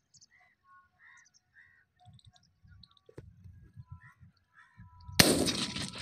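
A single 12-bore shotgun shot about five seconds in, sudden and loud, trailing off in a long echo. Before it, faint short bird chirps.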